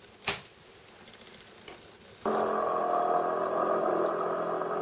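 A click, then about two seconds later an old film soundtrack starts abruptly, played back through a computer's speaker: a steady sound of several held tones.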